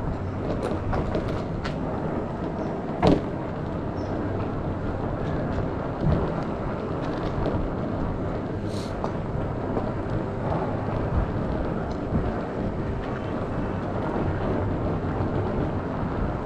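Steady rumbling noise of an off-road Segway rolling over a cracked concrete alley, picked up by the camera mounted on it, with a sharp knock about three seconds in and a softer one about six seconds in.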